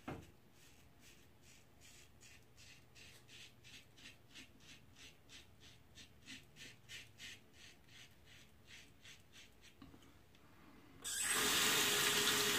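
Safety razor blade scraping through lathered stubble on a cross-grain pass, in quick short strokes of about four a second. About eleven seconds in, a tap is turned on and water runs steadily into the sink, louder than the shaving.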